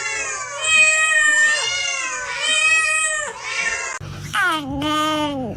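Domestic cat meowing: long, drawn-out meows one after another, about every second and a half, then a single meow that falls in pitch near the end.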